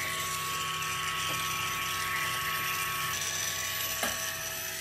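Benchtop wire EDM running during a slow cut: its wire feed drive and rollers turning steadily, a steady mechanical hum holding a few constant tones over a faint hiss.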